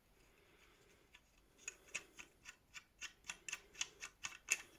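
A quick, even run of light metallic clicks, about four a second, starting about a second and a half in, as a screw is turned to fix the sight arm of an Avalon Tyro metal bow sight.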